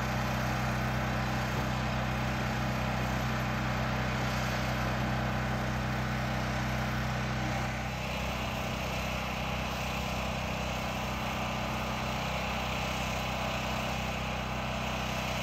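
A heavy engine idling steadily, its note shifting slightly about eight seconds in.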